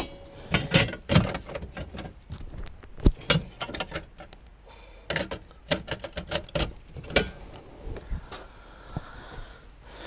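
Scattered clicks and knocks from handling the equipment and moving about, a dozen or more short sharp strikes spread unevenly, with no steady machine sound under them.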